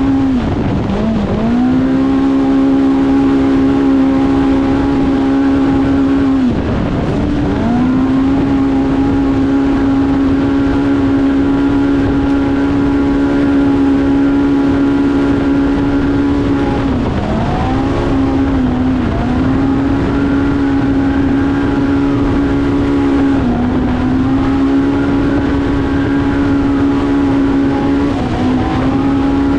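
Polaris Pro R UTV's four-cylinder engine at full throttle, its CVT holding it at a steady high pitch. Several brief dips in engine speed that climb straight back up, over a rush of tyre and wind noise.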